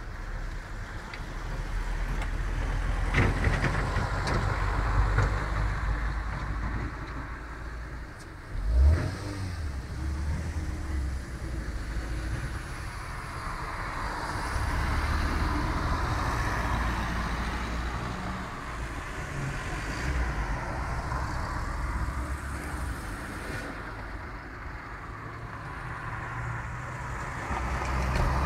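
Road traffic passing through a street junction: cars and a light flatbed truck drive by one after another, engine and tyre noise on asphalt rising and fading as each passes. A sharp thump sounds about nine seconds in.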